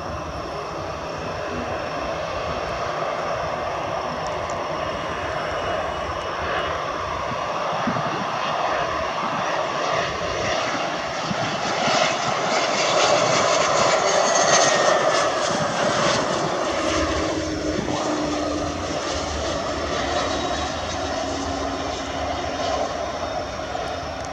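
Cessna 680A Citation Latitude business jet's twin Pratt & Whitney Canada PW306D1 turbofans on landing approach, growing louder as the jet passes low along the runway about halfway through, with the engine whine falling in pitch as it goes by, then easing off a little.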